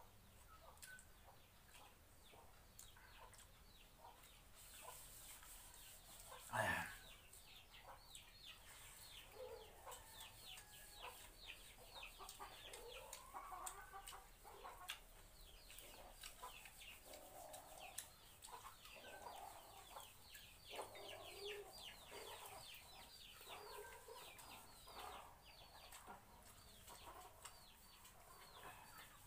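Faint chickens clucking, with many short high peeps repeating throughout. One sharp knock about seven seconds in.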